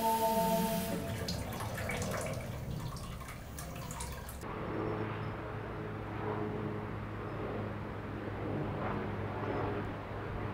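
Tap water running and splashing into a washbasin, full of small splashy clicks, which stops abruptly about four seconds in. After that only a steady low hum remains.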